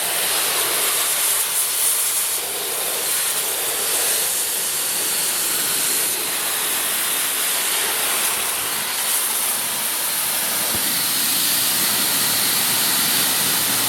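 Car wash pressure-washer wand spraying a steady, loud hissing jet of hot water onto a BMX bike, the spray noise shifting a little as the jet moves over the frame and grips.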